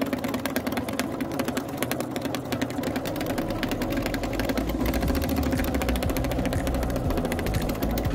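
Sewing machine stitching steadily at speed: a fast, even run of needle strokes while free-motion quilting, tacking down fused raw-edge applique pieces. A low motor hum comes up about halfway through.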